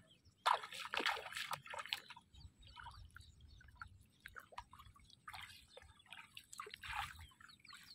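Shallow water splashing and sloshing in irregular short bursts as a person wades and works a fishing line through it, loudest between about half a second and two seconds in.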